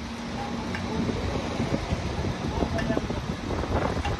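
Engine of a truck-mounted crane running steadily, with a low even hum under it.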